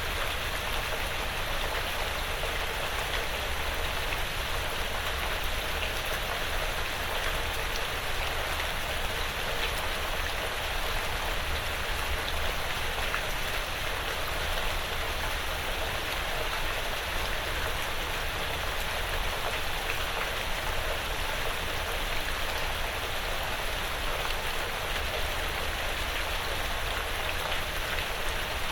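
Steady rain pattering on a porch roof and in the surrounding woods, with many small drop ticks and no change in strength.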